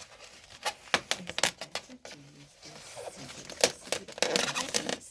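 Packaging on a boxed appliance being cut and torn open: an irregular run of sharp clicks, snaps and crackling, crinkling plastic and cardboard.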